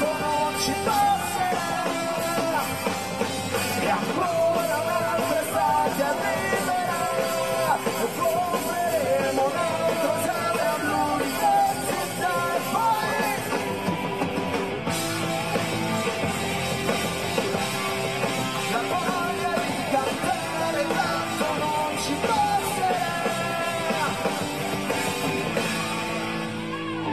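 Live rock band playing a song, with a sung lead vocal over drums and electric band backing.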